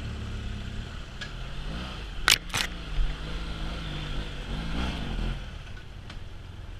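BMW F800GS parallel-twin engine running as the motorcycle rides a dirt trail, the revs rising and falling about five seconds in. Two sharp knocks a little over two seconds in, with wind rushing on the microphone.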